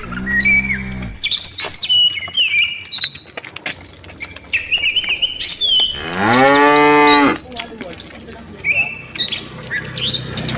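Cattle mooing. A low moo ends just after the start, and a louder, long moo comes about six seconds in, rising and then falling in pitch. Birds chirp throughout.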